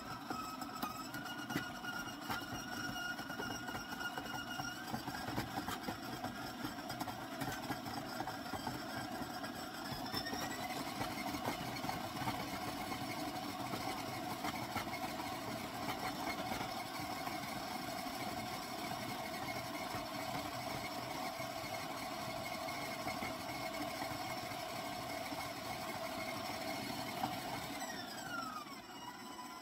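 KitchenAid stand mixer running with a dough hook, creaming butter and sugar: a steady motor whine that steps up in pitch three times as the speed is raised, then drops in pitch near the end.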